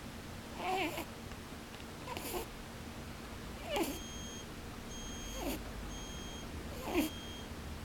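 Pet rabbit snoring in its sleep: a short squeaky "pū-pū" snore about every second and a half, five in all, each falling in pitch with a puff of breath.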